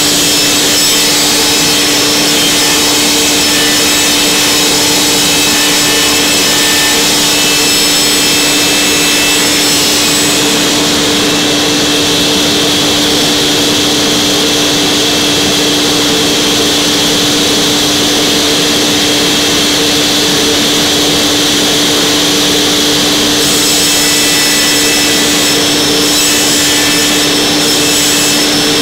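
Table saw running steadily, ripping solid oak boards into strips along the fence, with a constant motor hum under the cutting noise.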